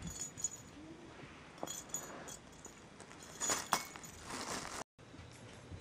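Bell inside a plastic lattice cat-toy ball jingling lightly in scattered bursts as a kitten bats at it, with the crinkle of a plastic shopping bag it lies against. The sound cuts off abruptly about five seconds in.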